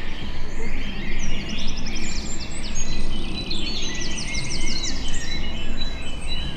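Dawn chorus of many songbirds singing at once, with overlapping phrases and fast high trills, over a steady low rumble.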